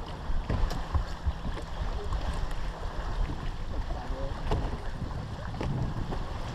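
Wind buffeting the microphone over choppy water lapping at a boat's hull, with a few sharp knocks through it.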